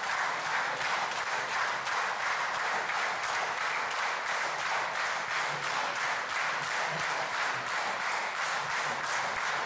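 A roomful of people applauding steadily, with a regular pulse of about three a second running through the clapping.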